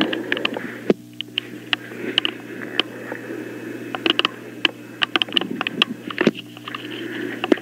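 Open telephone line with nobody talking: a steady low hum and hiss, broken by scattered clicks and small knocks.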